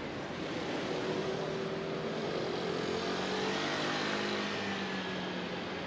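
Engine of a passing motor vehicle, a steady hum that swells in the middle and drops slightly in pitch as it goes by, over street background noise.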